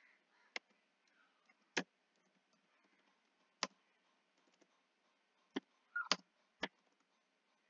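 A few separate keystrokes on a computer keyboard, spaced a second or two apart, with several coming closer together about six seconds in.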